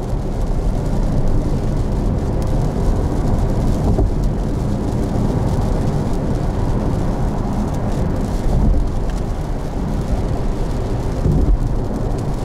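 Steady low rumble of tyres on a wet road with rain and water spray, heard from inside a Porsche Taycan Turbo S driving in a downpour.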